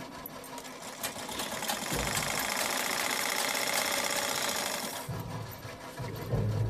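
Sewing machine running steadily as it stitches a seam through layered fabric. It starts about two seconds in and stops about three seconds later.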